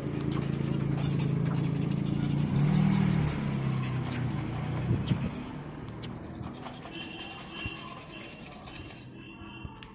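Steel blade ground on a spinning grinding wheel, a steady gritty hiss that stops about five and a half seconds in. An engine hum runs underneath, rising in pitch about three seconds in.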